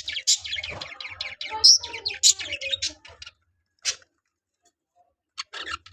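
Budgerigars chirping and chattering in quick bursts, which stop briefly just past the middle and start again near the end.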